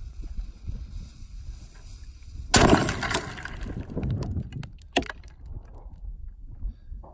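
Golf ball cannon firing once: a single loud blast about two and a half seconds in that rumbles away over a second or two. A second sharp crack follows about two seconds later.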